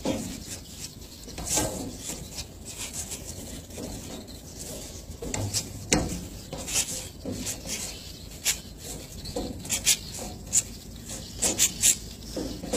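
A person shadow boxing: sharp hissing exhalations with the punches and footwork scuffing on the deck, coming irregularly, with a quick cluster of sharper ones near the end.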